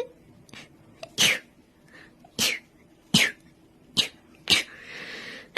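A young woman sneezing five times in quick succession, each sneeze short and sharp, about a second or less apart. A breathy in-breath follows near the end.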